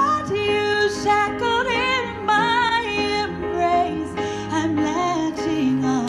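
A woman singing a slow acoustic ballad into a handheld microphone over steady instrumental accompaniment, her held notes sliding between pitches.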